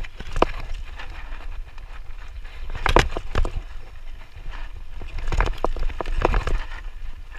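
Radon Slide 150 full-suspension mountain bike rolling fast down a dirt singletrack: a steady low rumble of tyres and wind, broken by sharp rattling knocks as the bike hits bumps, in clusters about 3 seconds in and again about 5 to 6 seconds in.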